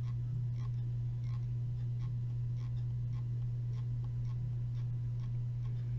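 Steady low electrical hum with faint short ticks about twice a second.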